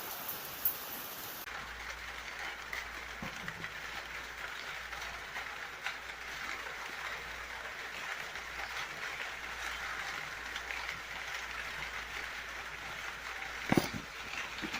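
Steady rain falling, an even hiss with scattered drop ticks, shifting in tone about a second and a half in. A single sharp knock near the end is the loudest sound.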